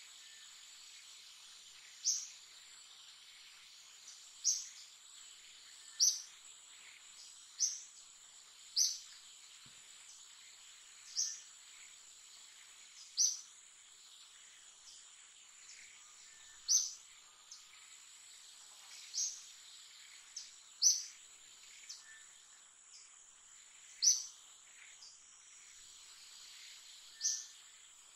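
Outdoor nature ambience: a steady high-pitched insect drone, with a short high chirp repeated about a dozen times, every two to three seconds.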